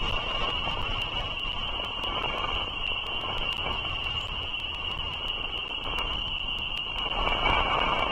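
Outdoor ambience picked up by a bald eagle nest camera's microphone: a steady low rumble with a constant high-pitched tone over it and many faint ticks. The rumble grows a little louder near the end.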